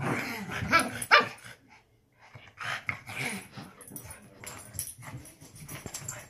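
Puppies barking and yipping as they play-fight. A burst of sharp barks comes in the first second and a half, more follow around three seconds in, and quieter yips and scuffling fill the rest.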